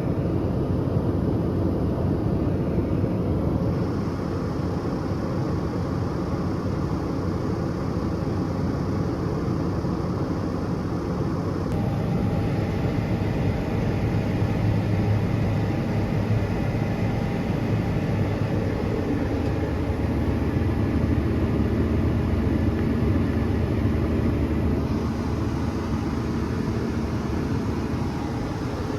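Heavy farm machinery engine running steadily, a continuous low drone. Its tone shifts abruptly about 4, 12 and 25 seconds in.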